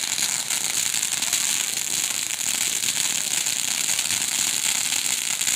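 Ground fountain firework spraying sparks, giving a steady high hiss with dense fine crackling throughout.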